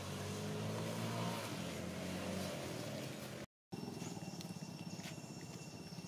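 An engine passing, its steady hum swelling to a peak about a second in and then fading. It breaks off abruptly; after a short gap comes a fast low pulsing with two thin steady high tones.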